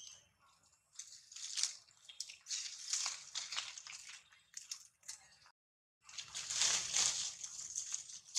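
Irregular crackling and rustling of leaves and twigs as a monkey moves and handles them in a tree. The sound cuts out completely for about half a second a little past the middle.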